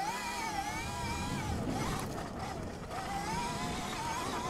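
Electric motor and gearbox of a BHR E-Race electric dirt bike whining under throttle while it is ridden on a dirt trail. The whine rises and falls with the throttle, dips a little past halfway through and climbs again, over a steady rushing noise.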